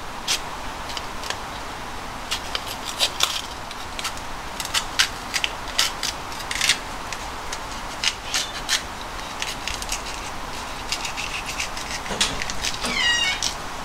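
Kitchen knife cutting into a raw green bell pepper held in the hand: irregular crisp snaps and clicks as the blade breaks through the firm flesh, with a short squeak near the end.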